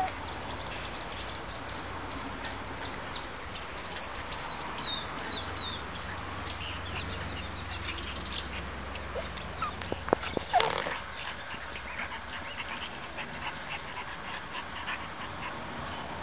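Seven-week-old miniature schnauzer puppies whimpering and yipping, with one louder yelp about ten seconds in.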